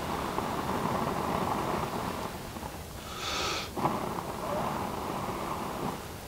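A person blowing into a smouldering tinder bundle of dry leaves lit with wire wool, coaxing it into flame. There are two long, steady blows with a quick, sharp breath drawn in between them, about three seconds in.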